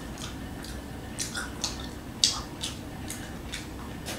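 Wet chewing and lip-smacking mouth sounds of a person eating, heard as about half a dozen short, sharp clicks spread over a few seconds.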